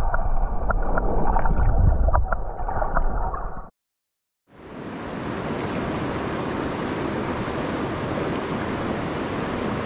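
Muffled gurgling water with a few light knocks, cutting out for under a second, then the steady rush of a river.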